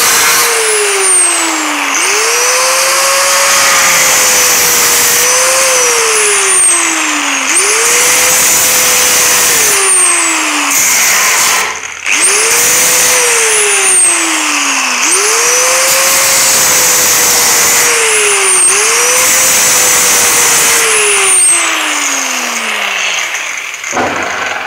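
Angle grinder with a thin cut-off disc cutting through the sheet steel of a Classic Mini's old scuttle panel. The motor pitch sags each time the disc bites and climbs back as it frees, several times over, with a short break about halfway. Near the end the motor winds down.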